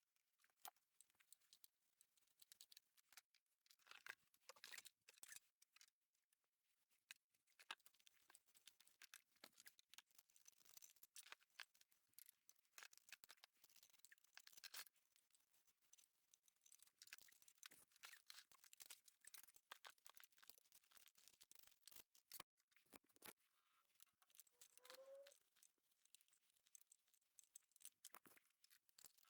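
Near silence: faint scattered clicks and rustling, with one short rising squeak near the end.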